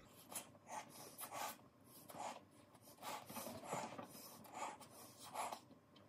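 Someone blowing up a rubber balloon by mouth: a quick run of about a dozen short, breathy puffs and in-breaths as the balloon fills.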